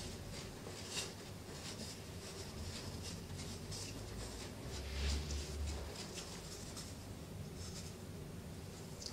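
A pencil scratching and tapping on a hard surface in short, irregular strokes, with a dull bump about five seconds in.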